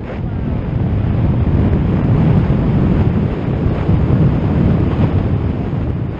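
Wind noise on a paraglider pilot's camera microphone from the airflow in flight: a loud, steady rumble that swells over the first second.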